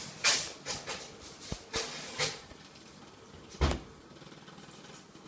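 A cat's scuffs and scrabbles on the floor while chasing a laser dot: several short quick scuffs, then one louder thump about three and a half seconds in.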